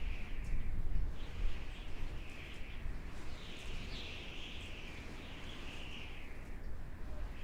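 Howling desert wind: a low gusting rumble under a higher whistling howl that swells and fades, with its longest swell in the middle.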